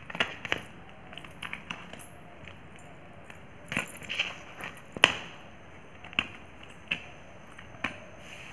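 Silver bell anklets jingling and clinking irregularly as bare feet shift about, with uncooked rice grains rustling underfoot. The sharpest clink comes about five seconds in.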